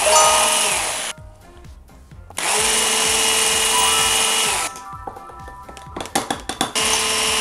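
Electric hand mixer whisking a thin batter in a glass jug, run in three bursts: the first about a second long, the second a little over two seconds, the third starting near the end. Each time it is switched off, the motor whine drops in pitch as the beaters spin down.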